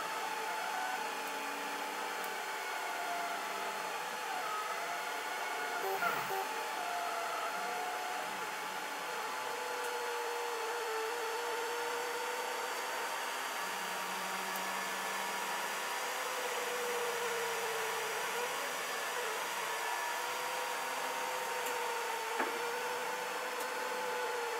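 Delta 3D printer printing its first layer: the stepper motors whine in pitches that rise and fall as the print head moves, over a steady whirr of cooling fans. Two brief clicks, about six seconds in and near the end.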